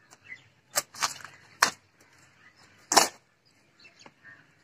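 Four sharp, irregularly spaced knocks or clicks, the loudest about three seconds in.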